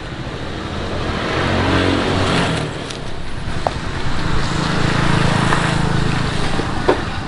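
Motor vehicles passing on a road, the engine sound swelling twice: first about a second in, then more strongly from about four to six and a half seconds.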